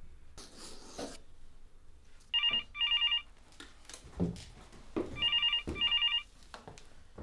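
Telephone ringing with a double-ring pattern: two pairs of short electronic trills, the first pair about two and a half seconds in and the second near the six-second mark. Soft knocks and rustles of movement lie between them.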